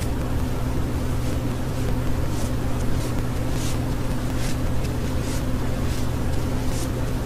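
A steady low mechanical hum, like a fan or motor running, with a few faint, brief high-pitched ticks scattered through it.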